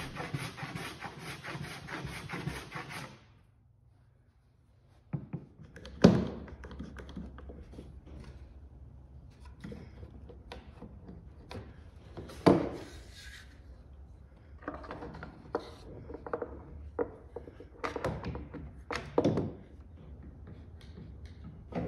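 A hand plane scrapes across the cedar hull bottom for about three seconds, flattening the spot where the keel will sit. After a short gap come the knocks and clicks of a wooden keel strip being laid against the hull and held with bar clamps, with a sharp knock about six seconds in, another near the middle, and a cluster near the end.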